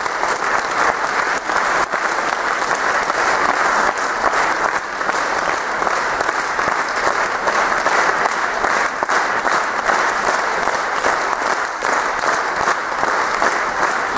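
Audience in a concert hall applauding, a dense, steady clapping.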